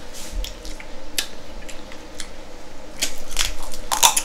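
Scattered clicks and cracks of crab shell being broken open and picked at with utensils, with wet eating sounds. The clicks come thicker about three seconds in.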